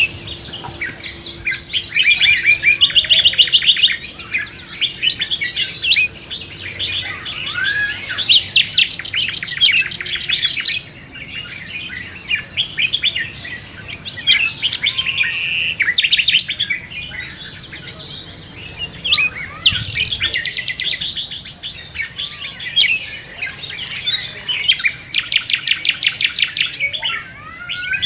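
A chorus of songbirds singing and chirping, with several loud fast trills of rapid repeated notes lasting a few seconds each among many shorter chirps and whistles.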